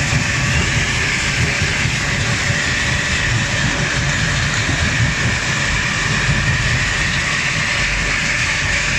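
Mobile crushing and screening plant running, with crushed gravel pouring off a stacker conveyor onto a stockpile. It makes a steady, unbroken din: a low rumble under a loud hiss.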